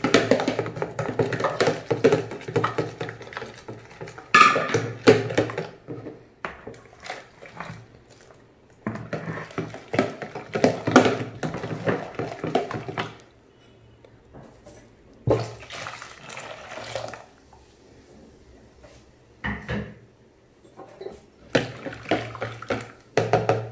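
A spoon stirs a thin spiced buttermilk marinade in a plastic tub, the liquid sloshing and the spoon scraping, in about four spells of brisk stirring with short pauses between.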